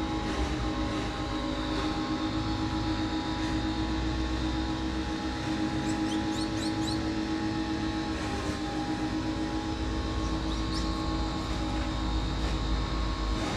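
Steady droning hum of a running motor, holding one pitch throughout, with a few short high chirps about six seconds in and again near eleven seconds.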